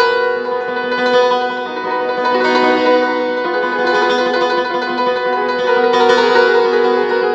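Grand piano played in an improvisation, its notes held and ringing together, with fresh notes struck every second or two.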